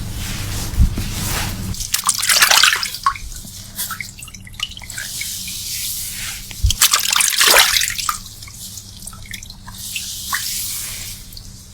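Water running and splashing over hair in a wash basin during a hair rinse, coming in three or four surges with drips in between.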